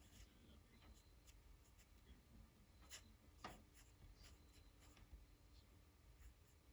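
Near silence with faint pen strokes scratching on paper, a few short strokes now and then, the clearest about three seconds in.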